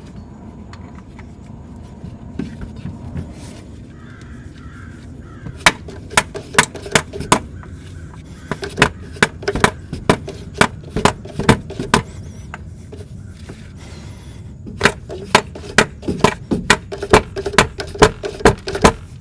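A dead blow hammer tapping on a seal driver, seating the right-hand axle shaft seal into an aluminum transaxle case. Quick, even blows come two to three a second, starting about five seconds in, in two runs with a short pause between them.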